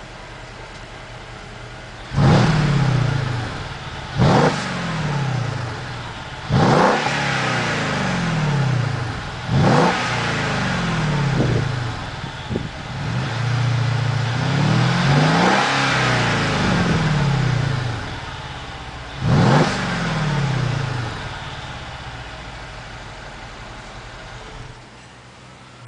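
Mercedes-Benz CLS 550 V8 exhaust idling and being blipped: about five sharp revs, each falling back to idle, with one slower, longer rise and fall of the revs midway, then settling back to idle.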